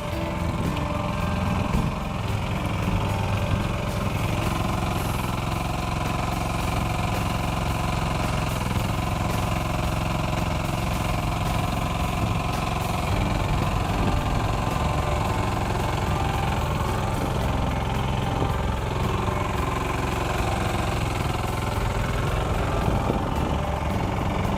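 Kubota mini excavator's diesel engine running steadily with a rapid knocking beat.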